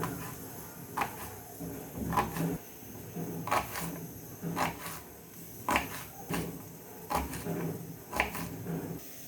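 Kitchen utensil knocking against cookware, a sharp knock about once a second, sometimes two in quick succession.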